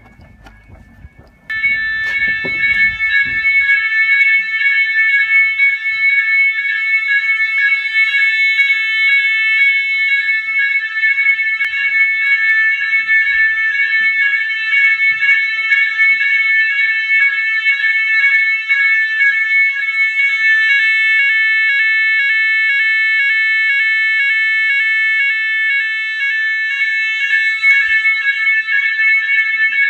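Fire alarm evacuation sounder of a type 1 fire alarm system switching on about a second and a half in, then sounding continuously: a loud, shrill, rapidly pulsing alarm tone.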